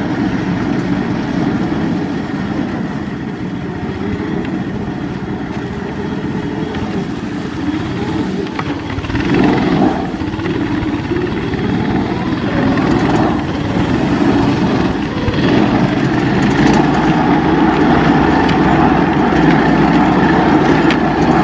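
Small engine of a ZiD Vyuga mini snowmobile running under way on a ride, revving up briefly about nine seconds in and running louder in the last few seconds.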